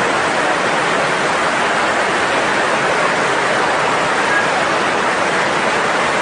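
Fast-flowing floodwater rushing through a street: a loud, steady rush of water.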